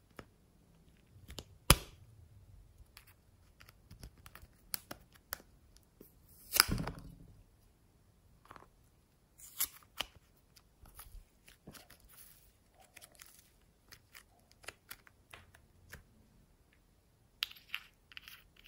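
Small plastic toy containers being handled and opened by hand: a string of sharp plastic clicks, snaps and scrapes. The loudest is a snap a little under two seconds in, and a longer crackling scrape comes near seven seconds.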